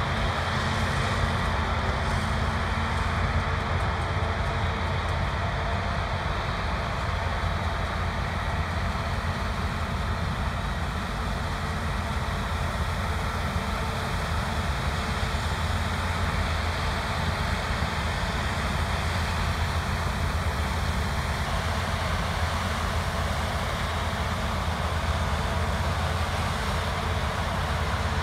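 Heavy harvest machinery, combine harvesters and tractors, running steadily with a deep engine drone. A thin high whine stops about three quarters of the way through.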